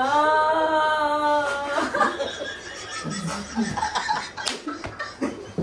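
A group of young people laughing, with stifled snickers and chuckles breaking out as they try to hold it in. It opens with a held high-pitched note that lasts about a second and a half before the laughter takes over.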